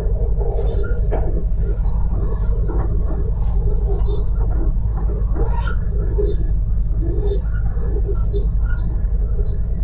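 Regional train running at speed, heard from inside the passenger carriage: a loud, steady low noise from the wheels and running gear on the track.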